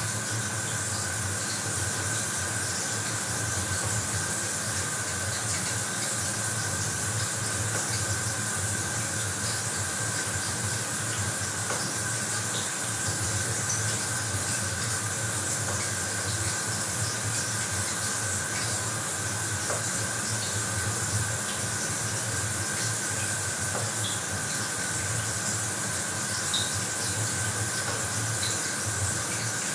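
Bathroom shower running: a steady hiss of water spraying down, with faint scattered droplet ticks and a thin steady tone.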